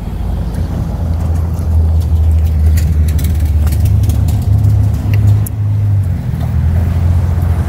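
Wind buffeting the phone's microphone: a steady, loud low rumble with a few faint ticks over it.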